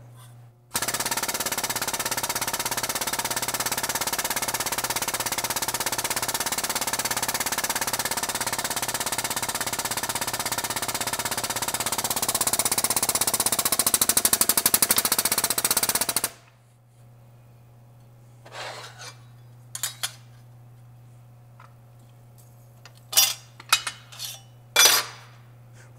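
Air-over-hydraulic foot pump running with a loud, very rapid chatter for about fifteen seconds as it drives a hydraulic hole punch through 16-gauge sheet steel. The chatter grows louder near the end and then cuts off suddenly. Afterwards come a few short, sharp metal clicks and clinks as the punched sheet is handled.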